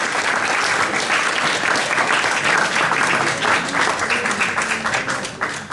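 A small audience applauding, with dense, steady clapping that starts thinning out near the end.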